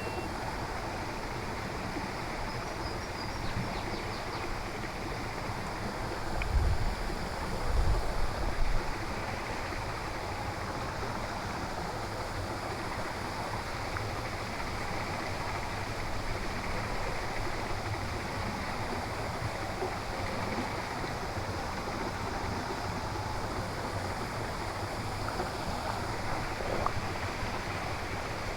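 Steady rushing noise like running water, with a few low bumps about six to nine seconds in.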